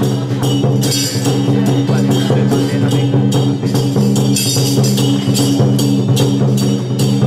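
Loud traditional percussion music of the kind that accompanies a Song Jiang Zhen troupe: drums and repeated cymbal or gong crashes over a steady ringing drone.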